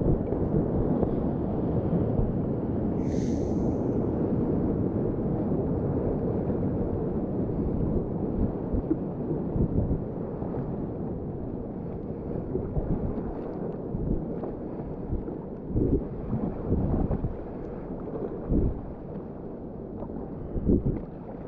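Rushing whitewater of the White Salmon River: a dense, low rumble of moving water with buffeting on the microphone, louder in the first half. In the last third, irregular splashes come and go. There is a brief high chirp about three seconds in.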